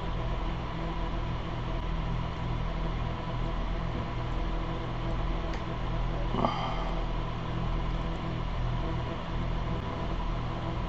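Small fume-extraction fan running with a steady hum. About six and a half seconds in there is one brief sharp tap.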